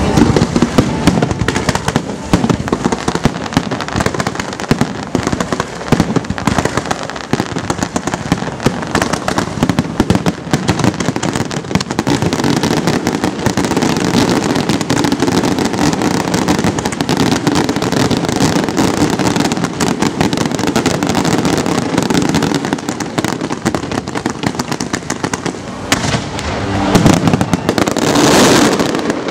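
Fireworks display: a continuous rapid barrage of shell bursts and bangs, with a louder swell of crackling near the end.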